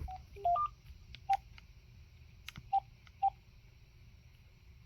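DECT 6.0 cordless phone key beeps as buttons are pressed through a settings menu: a quick rising run of three beeps just after the start, then short single beeps about a second and a half apart, with faint button clicks.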